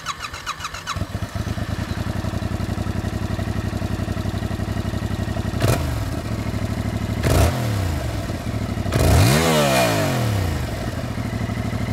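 Stock exhaust of a Yamaha R7's CP2 parallel-twin engine: it cranks and catches about a second in, then idles. The throttle is blipped twice, then given one bigger rev that rises and falls back to idle. This is the baseline stock exhaust sound, which the owner finds lacking in grunt.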